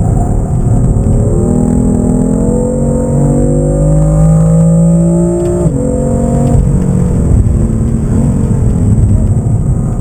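BMW M3's twin-turbo straight-six under hard acceleration, heard from inside the cabin, its pitch climbing steadily for several seconds. The revs then fall sharply about halfway through, step down again a second later, and start to build once more near the end.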